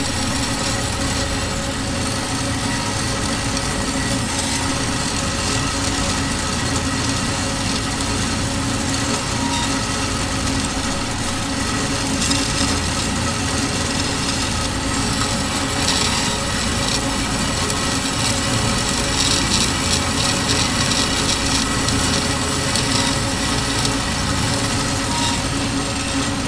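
Metal-cutting band saw running with its blade sawing through a steel bar: a steady motor hum under the hiss of the blade in the cut, which grows louder and rougher about halfway through.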